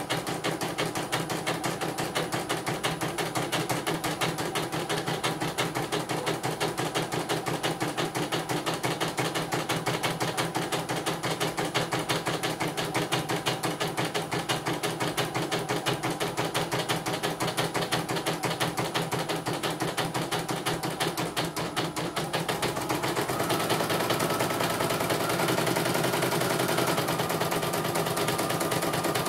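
CNY computerized embroidery machine stitching: the needle runs in a rapid, even rattle of strokes while the embroidery arm moves the hoop. About 23 seconds in a steady whine joins the rattle. The machine is running normally, with no fault found.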